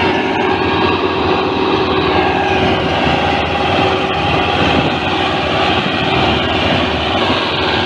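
Belarus 510 tractor's diesel engine running steadily under load as it pulls a double disc harrow through the soil.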